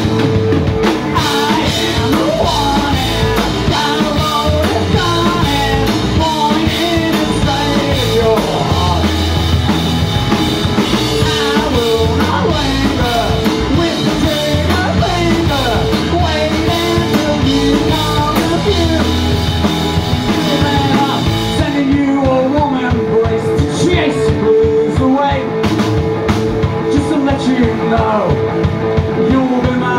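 A rock band playing live: electric guitars, bass guitar and drum kit, loud and driving.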